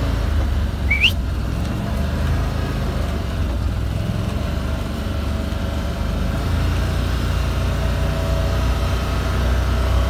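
Farm utility vehicle's engine running steadily at low speed, with one short rising whistle about a second in.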